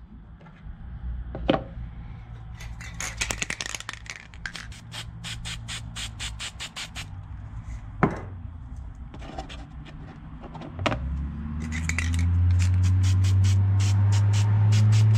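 Aerosol can of gasket tack spray being shaken, its mixing ball rattling in quick runs of clicks, with a few single knocks. About eleven seconds in, a low steady hum comes in and grows louder, ending as the loudest sound.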